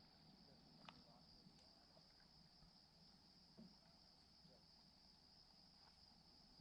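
Faint, steady high-pitched insect chorus, with a small faint click about a second in.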